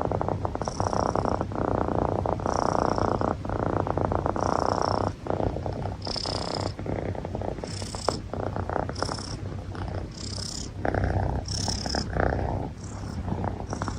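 Long-haired Munchkin cat purring close up: a steady low rumble that turns raspy with each breath, with a faint high whistle recurring about once a second.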